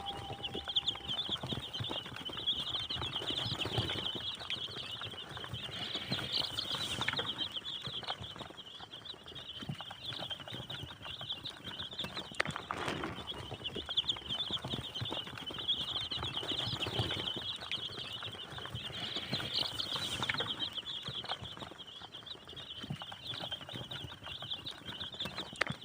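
A brood of layer chicks peeping continuously, a dense chorus of overlapping high cheeps, with scattered rustles of movement and wing flapping.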